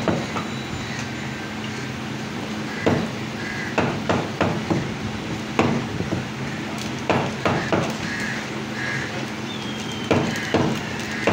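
Butcher's cleaver chopping mutton on a solid wooden chopping block: about a dozen sharp, irregular knocks, over a steady low hum.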